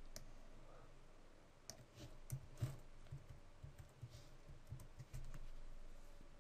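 Faint, irregular clicks of a computer keyboard and mouse during text editing, a few keystrokes at a time.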